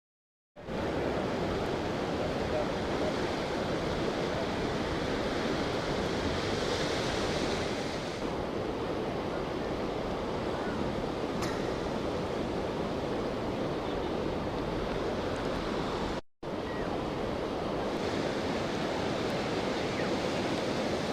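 Steady rush of strong wind over the microphone, with no distinct events; it starts abruptly about half a second in and drops out for a moment near the two-thirds mark.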